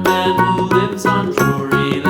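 Background music: a light, bouncy tune with bright tinkling notes over a steady beat.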